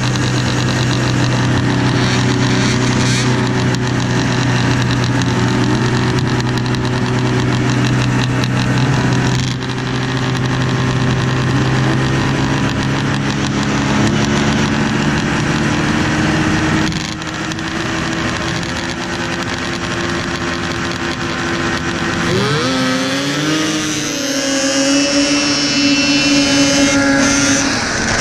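Vintage 340 cc two-stroke racing snowmobiles idling together at the start line. About 22 seconds in they rev hard, pitch rising sharply, as they launch and accelerate away at racing speed.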